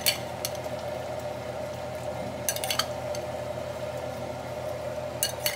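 Seasoned raw shrimp being tipped from a glass bowl into a pot of simmering greens, with short clinks of glass against the pot's rim: once at the start, a quick run about two and a half seconds in, and twice near the end. A steady hum runs underneath.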